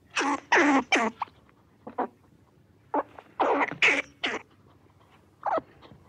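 Fox squirrel barking: harsh, rasping alarm calls in quick groups of two to four, a single one about two seconds in, and a last pair near the end.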